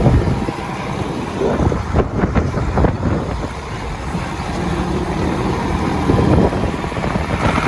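A motor vehicle driving: a steady low rumble of engine and road noise, with a few short knocks about two to three seconds in.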